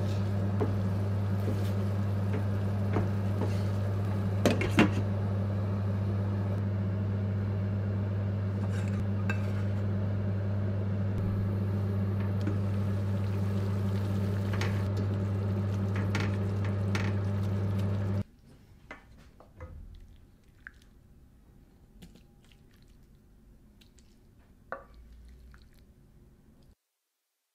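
A wooden spoon knocks and scrapes in a stainless steel frying pan of simmering tofu stew on a gas burner, over a steady low hum. About two-thirds of the way through, the sound drops to a few soft clinks and scrapes as the stew is tipped from the pan into a bowl.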